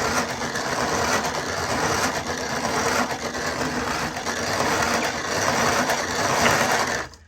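Hand-cranked grinder grinding split peas (dhal) for dhal puri: a steady grating, churning mechanical noise as the handle is turned, stopping suddenly near the end.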